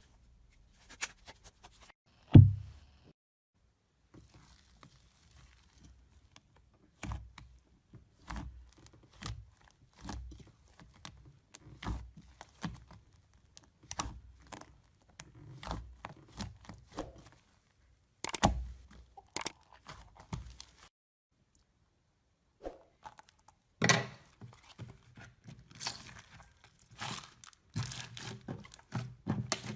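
Crunchy ASMR material squeezed and pulled apart by hand, crackling and tearing in strokes about once a second. There is one loud thump about two seconds in, and the crackling gets denser near the end.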